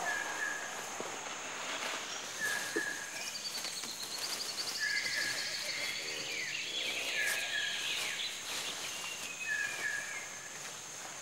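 Rainforest ambience: a bird repeats a short two-part call about every two seconds over a steady high drone of insects, with a brief trill and another lower call near the middle.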